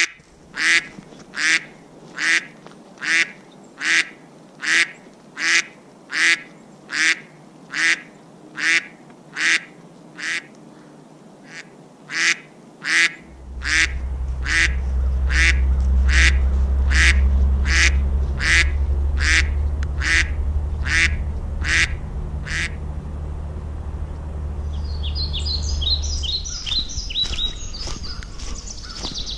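A duck quacking over and over, evenly at about one quack a second, stopping about three-quarters of the way through. From about halfway a low rumble joins in and runs on, and near the end small birds chirp.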